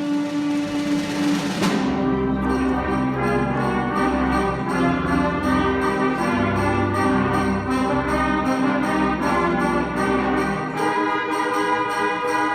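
Brass-heavy band playing sustained chords, with a faint high tone pulsing about three times a second underneath from about two seconds in.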